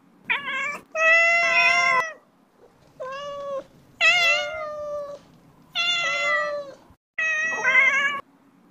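A cat meowing again and again: about six separate meows in a row, each lasting up to about a second, some sliding down in pitch at the end.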